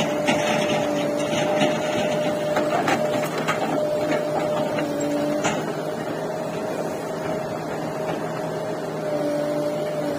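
Diesel engines of a JCB 3DX backhoe loader and a tractor running steadily, with a constant whine over the engine noise. A few short knocks come in the first half.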